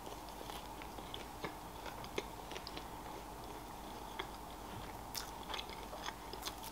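A mouthful of flaky pastry being chewed close to the microphone: faint, irregular mouth clicks and a few small crunches.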